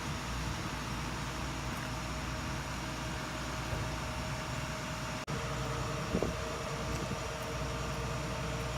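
Tow truck's engine idling steadily, with a brief drop-out about five seconds in.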